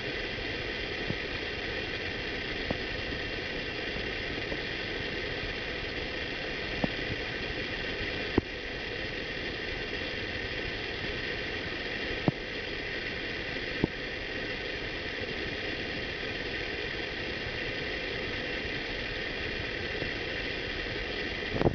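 Steady background hum and hiss with several fixed tones, broken by half a dozen faint clicks.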